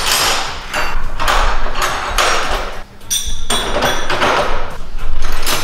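Steel wrenches clattering and scraping against metal in a run of short, irregular bursts with a metallic ring, as spanners of different sizes are picked out and tried on a suspension bolt.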